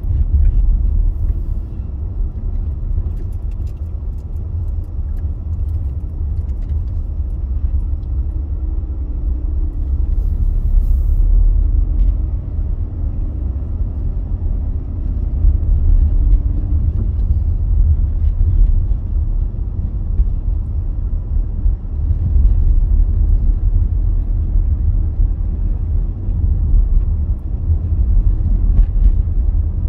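Steady low rumble of a car being driven, engine and tyre noise heard from inside the cabin, swelling and easing a little with the road.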